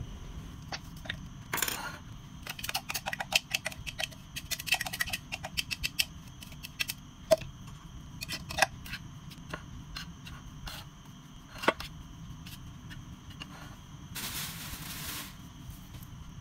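Plastic spatula scraping and clicking against a clay bowl while mixing minced mushroom: a fast run of clicks and scrapes that thins out after about nine seconds, then a short rustle near the end.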